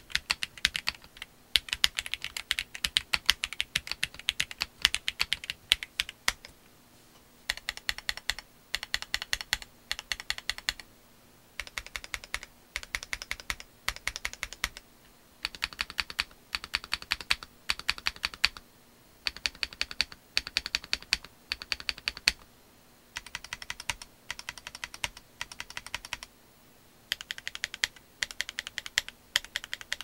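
Typing on a Monsgeek M1W mechanical keyboard with Akko Piano V3 Pro switches, ST DS PBT keycaps, and plate/PCB foam plus a VHB sheet for dampening. Steady typing for the first six seconds or so, then short runs of quick, evenly spaced key presses separated by pauses of about a second.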